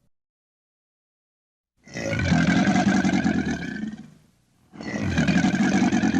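Crocodile giving two long, rough, low growls: the first begins nearly two seconds in, the second follows after a short pause and is still going at the end.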